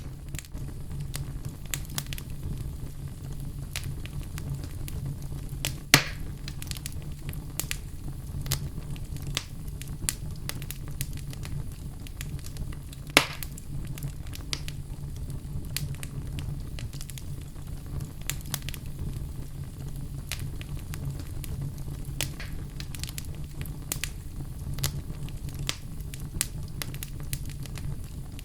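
Outdoor fire crackling with frequent small pops over a steady low rumble of flame. Two louder sharp pops come about 6 and 13 seconds in.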